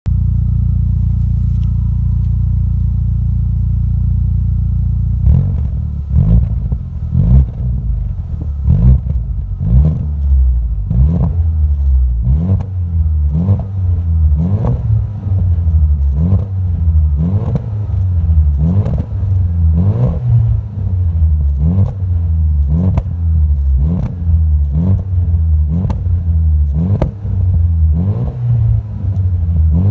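Audi TT 225 Quattro's 1.8-litre turbocharged four-cylinder heard through a non-resonated XS Performance cat-back exhaust. It idles steadily for about five seconds, then is blipped over and over, the pitch rising and falling back about every three-quarters of a second.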